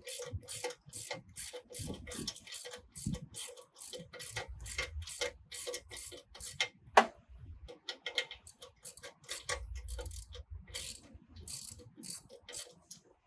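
Socket ratchet clicking as its handle is swung back and forth, undoing an 18 mm bolt. About three clicks a second, with a short pause and one sharper click about seven seconds in.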